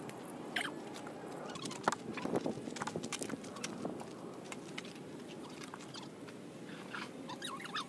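A car-side camping awning being taken down by hand: nylon fabric rustling, with scattered clicks and knocks from its poles and steps on gravel. The sharpest knock comes about two seconds in.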